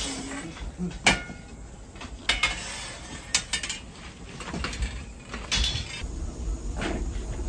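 Scattered knocks and clinks of objects being handled and set down, the sharpest about a second in, over a steady low hum.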